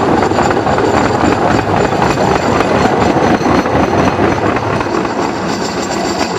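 Cambodian bamboo train (norry) riding along the rails: a loud, steady clatter of its wheels on the track, with its motor running.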